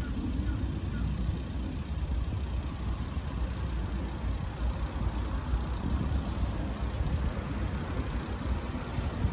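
Cars passing on a road below, a steady wash of tyre and engine noise that swells and fades as vehicles go by.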